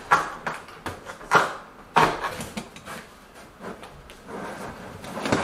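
Sheets of Schluter Ditra, a stiff orange plastic tile underlayment, being handled and unrolled over a plywood subfloor: a few sharp knocks and crackles in the first two seconds, then a steadier rustle near the end.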